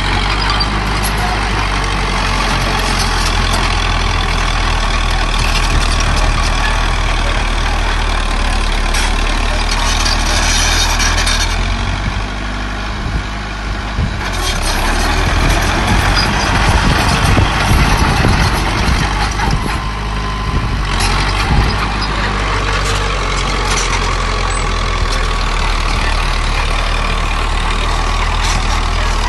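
Heavy diesel engines of a small bulldozer and dump trucks running steadily, with clattering that grows denser for a few seconds past the middle.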